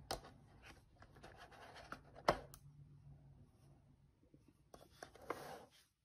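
Handling noise as a round plastic doorbell chime unit is lifted out of its moulded packaging tray: several sharp clicks and knocks, the loudest about two seconds in, with bursts of rubbing and scraping. The sounds stop abruptly just before the end.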